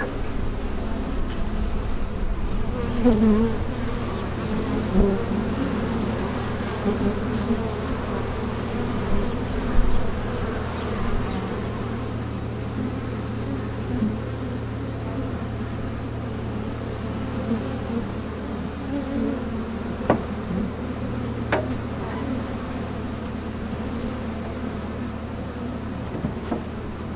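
Honeybees buzzing in a dense, wavering drone around hives being moved, over a steady low hum. A couple of sharp knocks come later on.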